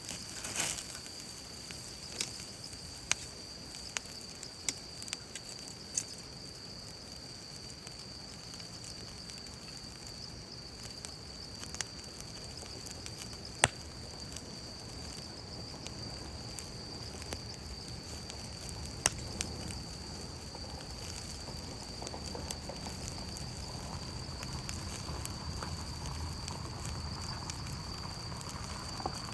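Wood campfire crackling, with scattered sharp pops.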